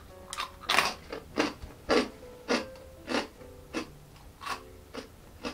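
Crunchy sweet butter cornbread croutons being chewed: a steady run of about nine crunches, roughly one every two-thirds of a second, growing a little fainter toward the end.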